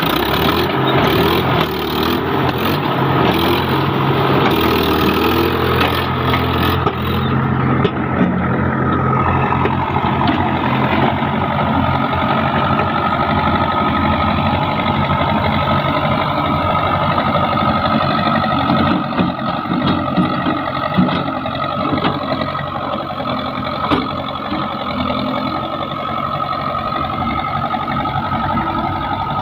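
Diesel engine of a JCB 3DX backhoe loader running steadily, with extra hiss and clatter over roughly the first seven seconds.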